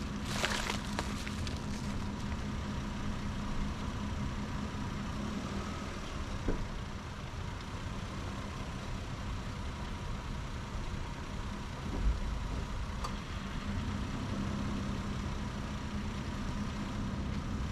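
Steady low engine hum with a faint constant tone above it. A short rustle comes just at the start, and a low bump about twelve seconds in.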